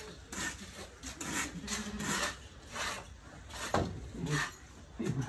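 Rakes scraping and dragging hay and straw bedding across a stable floor, in repeated strokes about two a second.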